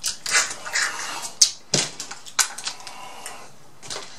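A man chewing crab meat close to the microphone: an irregular run of mouth clicks and smacks, with a couple of louder ones about one and a half seconds in.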